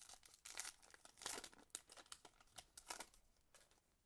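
Foil wrapper of a baseball card pack being torn open by hand, crinkling in a string of irregular crackles that die away near the end.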